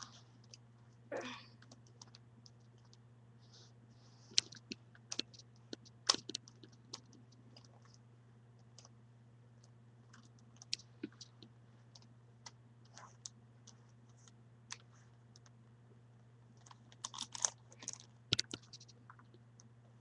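Plastic Rubik's Cube layers clicking as they are turned by bare feet, in irregular bursts that are busiest about four to seven seconds in and again near the end. A low steady hum runs underneath.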